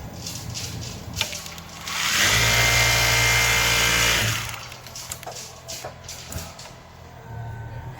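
Richpeace automatic garment sewing machine running at speed in one steady burst of about two seconds, starting about two seconds in. Lighter clicks and knocks from the machine come before and after it.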